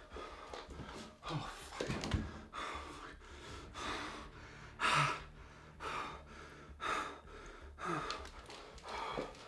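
A man's heavy, ragged breathing: sharp gasps and shaky sighing exhales about once a second, the loudest about halfway through, the sound of someone in distress.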